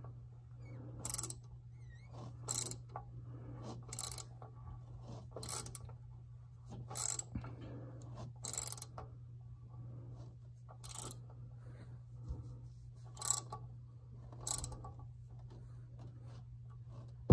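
Socket ratchet on an extension clicking in short spurts, about ten strokes spaced a second or two apart, as it unscrews a tight oil filter housing cap.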